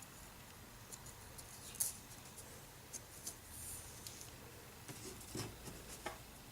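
Small balsa-wood pieces and tools being handled on a workbench: scattered light clicks and taps, the sharpest about two seconds in, with a brief scrape around the middle and a cluster of taps near the end.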